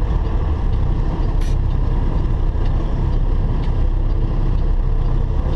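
Semi truck's diesel engine and road noise heard from inside the cab while driving on the highway, a steady low rumble.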